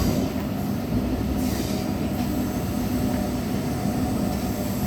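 MMTS suburban electric train running: a steady rumble of wheels on rail with a low, even hum.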